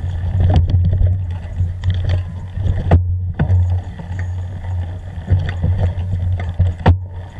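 Ride noise from an action camera jolting along a rough forest dirt trail: a steady low rumble with several sharp knocks as the mount hits bumps, the strongest about three seconds in and near the end.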